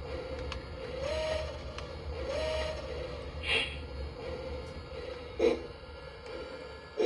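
Lionel O scale poultry car and layout running with a steady electric hum, with a sharp click every couple of seconds as the repaired animation works.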